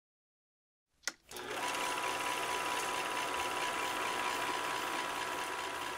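A small machine running with a fast, even mechanical clatter, starting just after a sharp click about a second in; a thin steady tone joins it shortly after.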